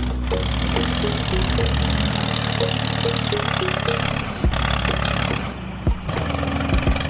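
A small engine running steadily, with a couple of sharp knocks in the middle.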